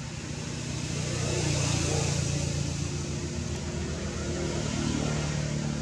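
Motor vehicle engine running steadily, swelling louder about a second in.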